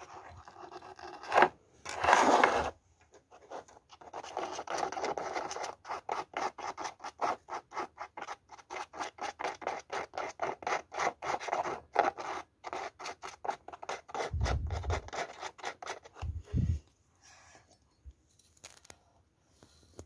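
Rapid, repeated scratching and rubbing strokes for about ten seconds, after a louder rasp about two seconds in; near the end come two dull thumps.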